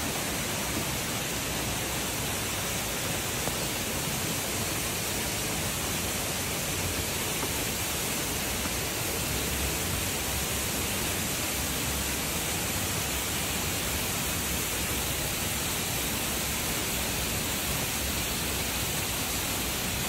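Steady, even rushing of a waterfall, a constant hiss of falling water with no let-up.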